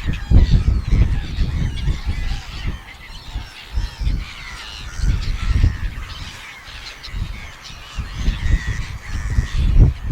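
Seagulls calling over and over, many short overlapping cries, with wind buffeting the microphone in strong gusts that make a low rumble.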